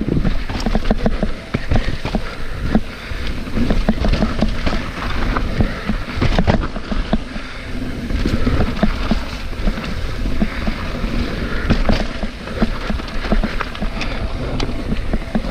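Mountain bike descending a rough, technical dirt trail: tyres rolling over dirt and roots, with the bike's chain and frame rattling and many irregular knocks as it hits bumps.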